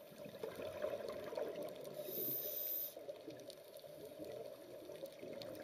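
Muffled underwater ambience: a low, even wash of water noise with no distinct events.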